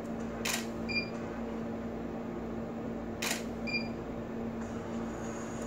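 Camera shutter clicking twice, about three seconds apart, each shot followed about half a second later by a short high beep from the studio strobe, the signal that it has recharged after firing. A steady low hum runs underneath.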